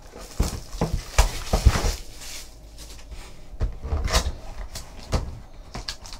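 Plastic shrink wrap crinkling as it is torn off a cardboard trading card hobby box, then the box handled and its lid lifted, with irregular crackles and knocks that are busiest in the first two seconds.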